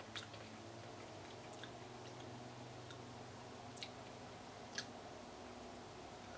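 Quiet mouth sounds of a person chewing a mouthful of grated vegan cheddar, with about four soft, sharp clicks over a low steady hum.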